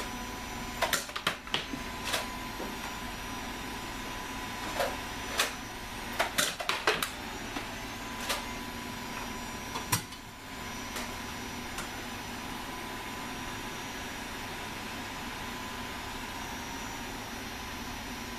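A scattered series of sharp clicks and knocks, some in quick clusters, over a steady background hum with a faint constant tone. After about ten seconds only the hum remains.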